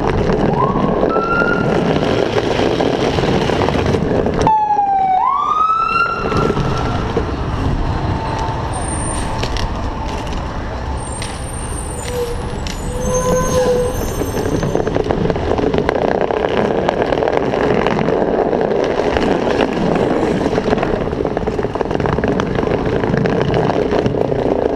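Steady wind and rolling noise from riding a small bike on a brick street, with a fire truck siren sounding over it: a short rising wail near the start and a falling-then-rising whoop about five seconds in. A few short high squeaks come a little after the middle.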